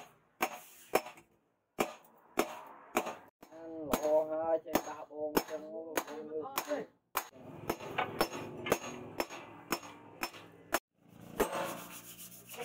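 Hammer blows on red-hot steel laid on a round steel post anvil, forging a blade: sharp metallic strikes with a short ring, at an uneven pace of about two a second.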